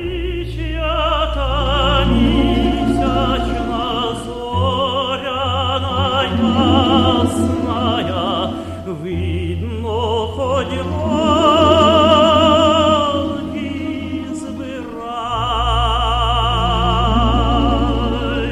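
Operatic singing: a voice with heavy vibrato holds long notes over orchestral accompaniment.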